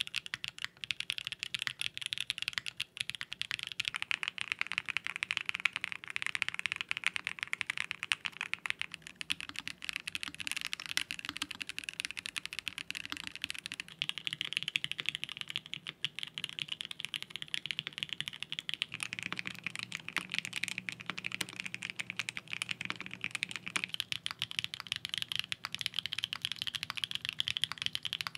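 Steady fast touch-typing on custom mechanical keyboards with lubed switches, a dense run of key clacks. Among the boards are a Sangeo 65 with TTC Panda switches and an Emery 65 with SPstar Ayara switches. The character of the clacks changes a few times as one keyboard gives way to the next.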